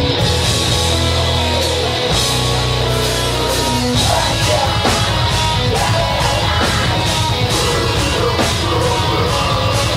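Metalcore band playing live: heavily distorted guitars, bass and drums. About four seconds in, the held low chords give way to a driving beat with cymbal hits about twice a second.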